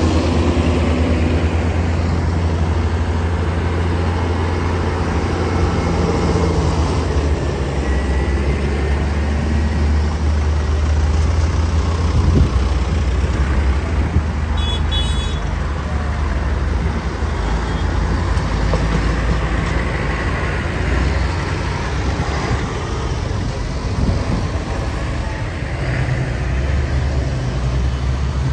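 A line of large modern diesel tractors (John Deere, Claas, Massey Ferguson, New Holland) drive slowly past one after another, their engines running with a steady low drone that swells as each one comes close. A short high-pitched chirping sounds about halfway through.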